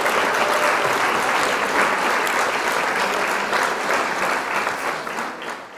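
Audience applause, a dense patter of many hands clapping that fades out toward the end.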